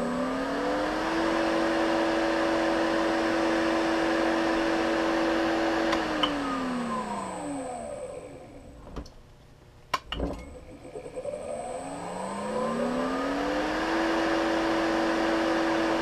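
Baldor 2 hp three-phase electric motor run from a KB KBAC variable frequency drive, its whine rising as the drive ramps it up and then holding steady. About six seconds in it winds down to a stop, there are a few sharp clicks, and then it ramps back up and runs steady again.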